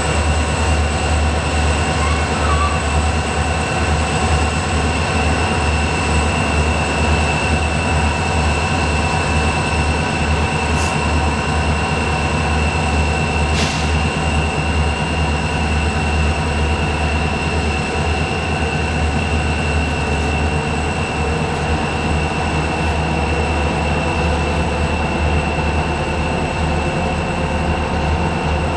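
Freight train of covered hopper cars rolling past behind two Union Pacific diesel locomotives: a steady deep rumble of wheels on rail with a thin, steady high squeal over it. Two brief clicks come through about halfway.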